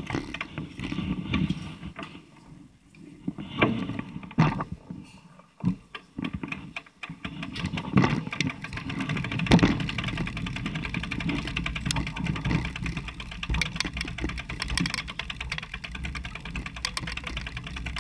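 Bicycle being taken off a train: a few loud knocks and bumps in the first half, then a fast, steady ticking and rattling from the bike as it rolls along the platform.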